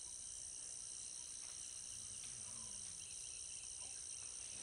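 Faint, steady, high-pitched insect chorus droning without a break.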